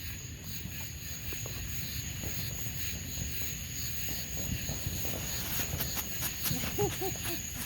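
Night-time outdoor ambience: a steady high insect trill under a low rumble, with a few faint sharp clicks or pops in the last couple of seconds.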